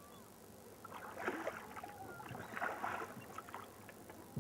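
Rowboat under oars: water splashing and lapping around the wooden oars and hull in irregular bursts.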